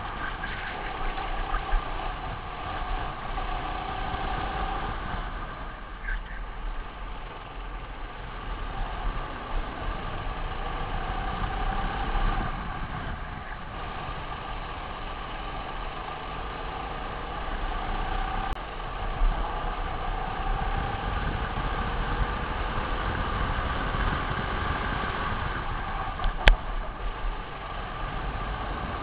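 Racing kart engine heard from an onboard camera while lapping, its pitch rising and falling as the kart speeds up and slows for corners, over a heavy low rumble of wind and vibration on the microphone. A single sharp click near the end.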